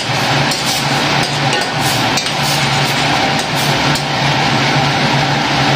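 Metal spoon stirring in a stainless steel pot of boiling tomato soup, knocking and clinking against the pot again and again, over a steady low hum.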